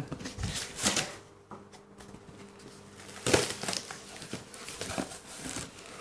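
Cardboard shipping carton being opened by hand: flaps and packing rustling and crinkling in irregular bursts, the loudest about three seconds in.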